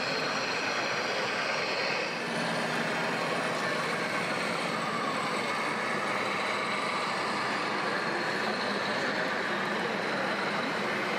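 Steady background din of a busy trade-fair hall, an even wash of noise with no single event standing out.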